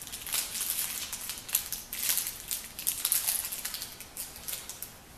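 Phillips head screws being driven into an entry door knob by hand with a screwdriver, irregular small metal clicks and scrapes as the knob parts are handled and the screws turned.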